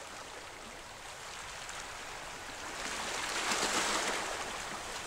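Small waves lapping and splashing against rocks, a steady wash of water that swells louder a little past halfway.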